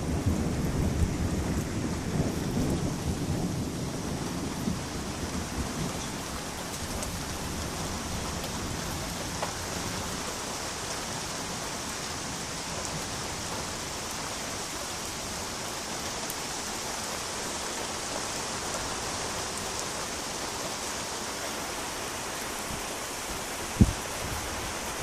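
Steady rain falling during a thunderstorm, with a roll of thunder rumbling away over the first few seconds. A single sharp knock sounds near the end.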